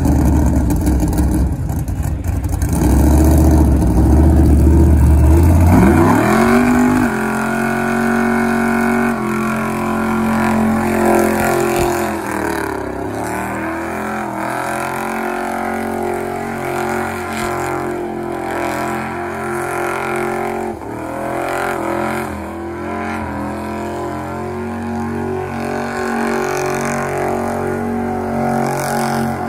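A full-size van doing a burnout, its rear tires spinning in place. The engine rumbles low at first, revs up about six seconds in, then holds steady high revs, with two brief dips and recoveries, one near the middle and one about two-thirds through.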